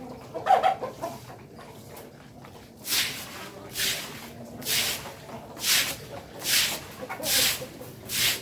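Village chickens clucking, with one loud squawk about half a second in. From about three seconds in, a swishing stroke repeats roughly once a second.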